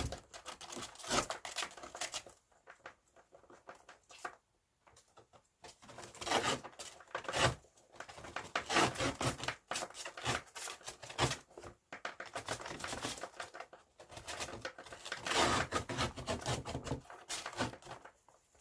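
Two flying squirrels scrambling about inside a paper bag: bursts of loud paper crinkling, rustling and scratching, with a quieter lull about three to five seconds in.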